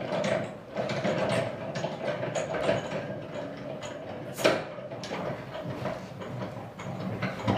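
Hand crank of a manual hospital bed being turned to adjust the bed: a steady run of rattling clicks, with one sharper clack about halfway through.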